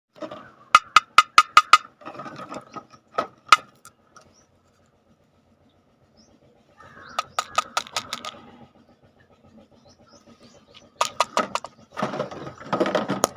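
Runs of rapid plastic clicks, about five a second, like a toy's ratchet mechanism, from a candy toy being worked by hand. Between the runs there are stretches of rustling, and there is a short quiet pause around the middle.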